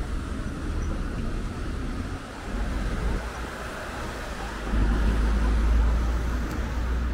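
Street traffic noise with a steady low rumble, which grows louder about five seconds in as a vehicle passes close by.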